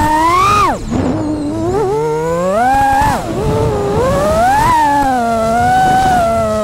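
FPV quadcopter's brushless motors and propellers whining, the pitch rising and falling with the throttle over several surges. It drops sharply about a second in, then climbs again and falls back.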